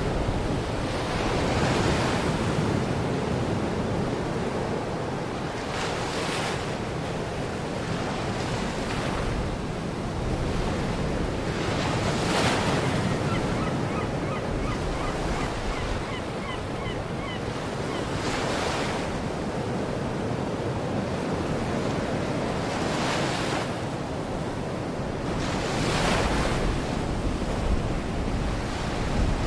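Baltic Sea surf washing onto the shore, with a wave swelling and breaking every few seconds over a steady rush and wind rumbling on the microphone. Around the middle, a faint run of short, high chirps.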